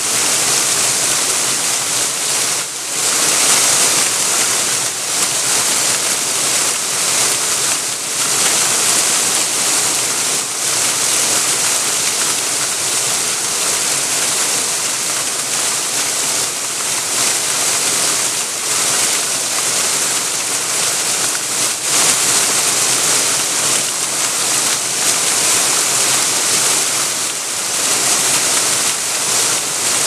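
Waterfall pouring onto stones: a steady rush of falling water, strongest in its high hiss, swelling slightly now and then.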